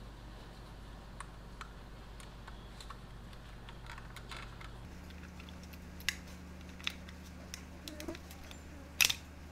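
Small plastic clicks and ticks from the shell of a Microsoft IntelliMouse Optical being prised apart by hand, coming more often in the second half, with a louder snap near the end as the clips let go.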